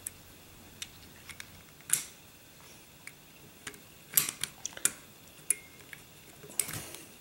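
Light metal clicks and scrapes from a Norinco 213 pistol's barrel bushing and recoil spring plug being worked by hand at the muzzle end of the slide, the recoil spring compressed so the bushing can be turned. The clicks come one at a time, with a quick run of them about four seconds in and another near the end.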